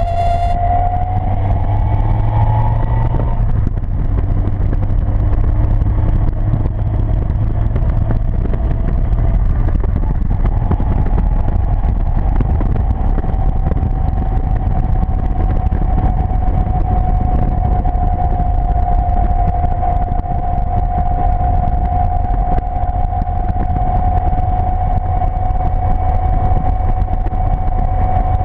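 Seven sports car's engine running hard at track speed, heard onboard over heavy wind rush in the open cockpit. The engine note climbs for about three seconds, breaks off, climbs again more slowly, then holds a nearly steady pitch for the second half.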